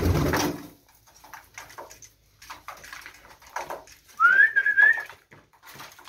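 Homing pigeons at a grain trough: a burst of low cooing at the start, then scattered quick pecking clicks. About four seconds in comes one short, high, whistle-like call that rises and then holds for about a second.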